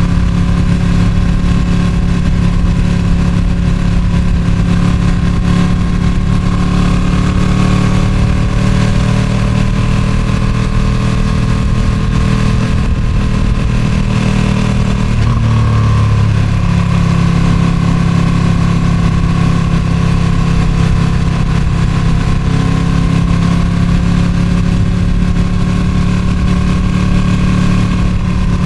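Ducati Streetfighter V2's 955 cc L-twin on its stock exhaust, running at a fairly steady engine speed under way. The pitch drifts slowly up and down and shifts noticeably about halfway through, with wind noise rushing over the microphone throughout.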